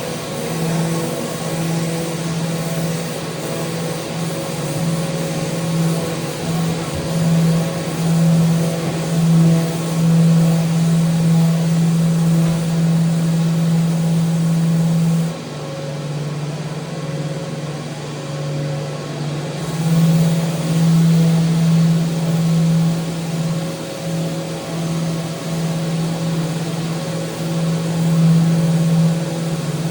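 Electric power sander running steadily with a loud motor hum. Its pitch drops a little for about four seconds around the middle, then comes back up.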